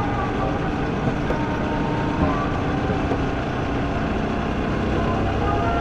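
Motorcycle engine running steadily while riding on the road.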